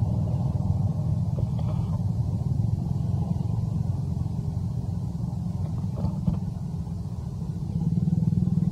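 A motor vehicle engine running steadily nearby, a low rumble that grows louder near the end.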